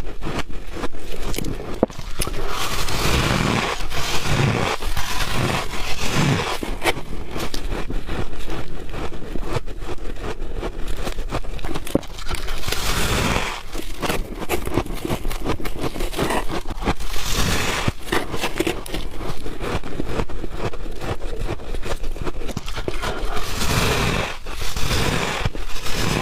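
Close-miked chewing and crunching of ice, a steady run of crackles and crunches with louder bites every few seconds.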